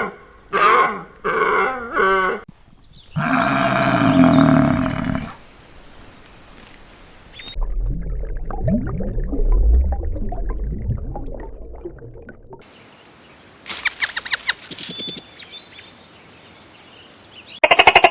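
A run of different animal calls cut one after another: a few short repeated calls, a long pitched call about three seconds in, a long low call from about eight to twelve seconds, then a quick series of clicks and a short final call near the end.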